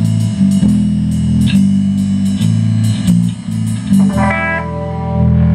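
Live rock band playing: electric guitars over drums, with cymbal and drum hits about twice a second. About four seconds in, the beat stops and a guitar chord rings on.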